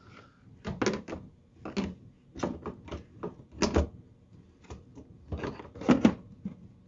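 Irregular clacks and knocks of a plastic cowl panel being handled and worked into place at the base of a car's windshield.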